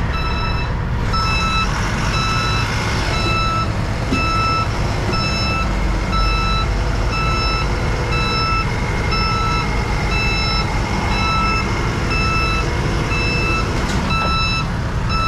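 Back-up alarm of a backhoe loader beeping steadily about once a second while it reverses, over its diesel engine running.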